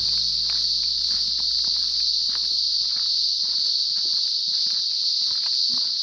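Steady, loud, high-pitched drone of cicadas in eucalypt bush, unbroken throughout, with faint crunching footsteps on a dry, leaf-littered track beneath it.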